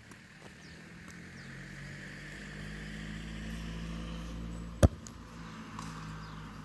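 A football kicked once, a single sharp thud nearly five seconds in and the loudest sound. Under it, the hum of a passing motor vehicle swells and then fades.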